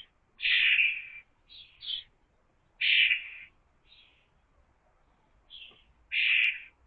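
A bird giving a series of harsh, scratchy calls, each about half a second long, repeated roughly once a second with a short gap in the middle.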